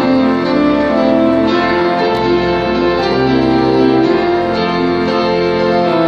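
Piano and organ playing a patriotic medley together: long held chords that change every second or so, with piano notes over them.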